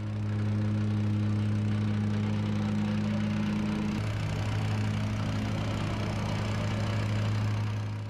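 Gas-engine vibratory plate compactor running at working speed as it packs the sand and gravel base, a loud, steady hum. Its tone shifts a little about halfway through.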